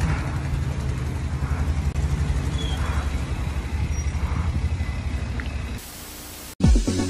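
Wind buffeting a phone microphone outdoors, heard as a fluctuating low rumble. Near the end it cuts to a short burst of TV-static hiss, and then music starts.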